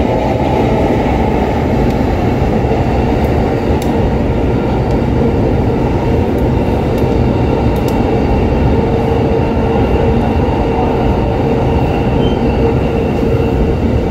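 Train running: a steady, loud rumble and rattle, with a steady whine that comes in about halfway through and lasts several seconds.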